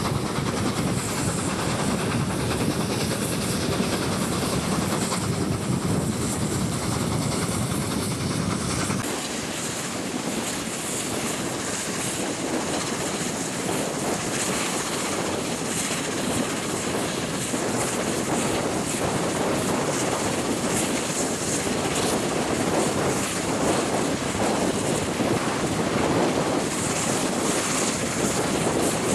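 The train hauled by A1 Pacific steam locomotive 60163 Tornado running past with a steady rush and rattle of wheels on the rails. The deep rumble drops away about nine seconds in, while the rattle carries on.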